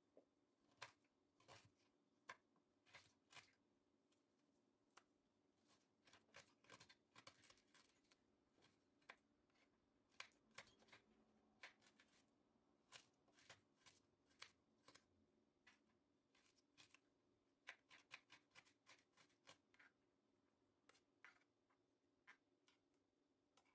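Faint, irregular sharp clicks and snips of ingredients being cut by hand with a knife.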